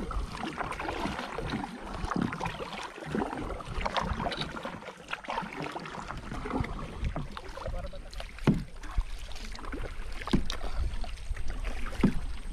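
Water splashing and dripping around a kayak on a calm river, then three paddle strokes in the water about two seconds apart in the second half.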